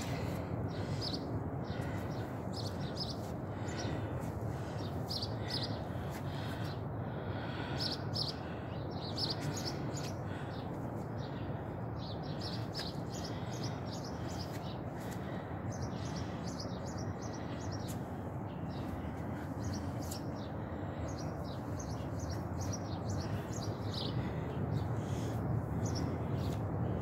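Small birds chirping in short, repeated high notes, over a steady low background rush.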